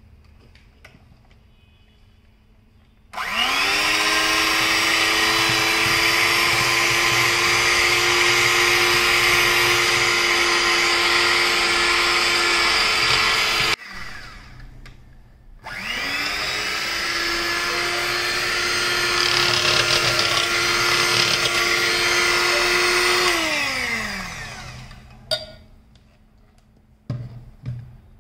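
Electric hand mixer whipping softened butter in a steel bowl. The motor spins up to a steady whine and runs about ten seconds, then stops. It starts again and runs several seconds more before winding down with a falling pitch, followed by a couple of short knocks.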